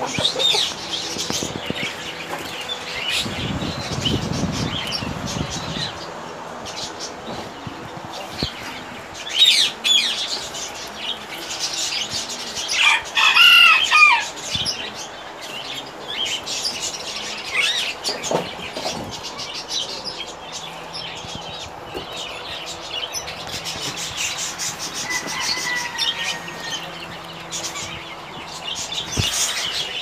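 Many caged pet birds, budgerigars among them, chirping and chattering together. A louder call rings out about thirteen seconds in, and there is a low rustle a few seconds in.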